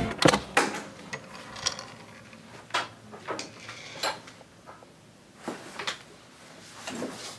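About a dozen light clicks and knocks at irregular intervals, with a faint hiss between them.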